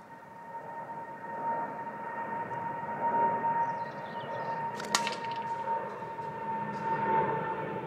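A steady high whine over a rushing drone that grows louder, like a distant engine passing. One sharp crack about five seconds in, from the catapult shooting at the cans.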